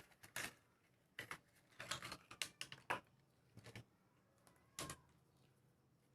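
Faint, irregular clicks, taps and light scrapes of small objects and tools being handled during a wood-crack filling job, about a dozen in all.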